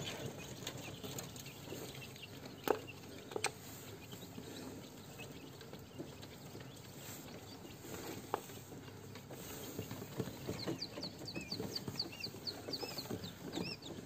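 Newly hatched quail chicks peeping, with a quick run of short high peeps, about four a second, in the last few seconds. A few light sharp taps sound earlier, the loudest about three seconds in.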